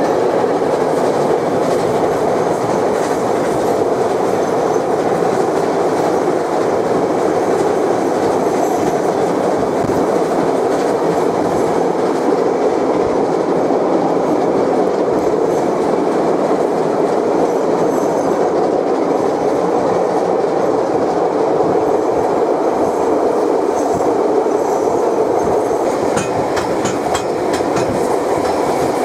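Steam-hauled train of Ab608 running along the track: a steady, unbroken rumble of the moving train, with a few faint clicks near the end.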